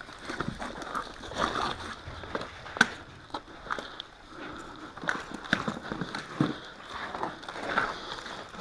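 Irregular footsteps and rustling, scuffing sounds, with scattered sharp clicks; one louder snap about three seconds in.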